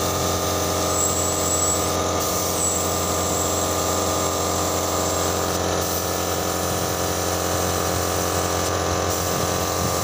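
Gravity-feed paint spray gun hissing as it sprays paint, over the steady hum of an air compressor motor running. The hiss dips briefly three times, once about two seconds in, once near the middle and once near the end.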